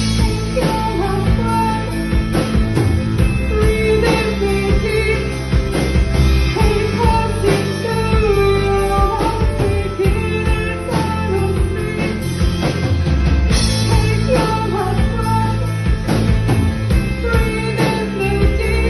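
A rock band playing live, with drums and cymbals keeping a steady beat under a sliding melodic line.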